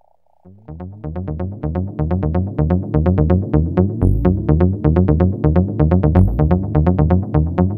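Electronic dance music with a steady fast beat and a pulsing bass line. It starts about half a second in, after a moment of silence, with two short rising swooshes along the way.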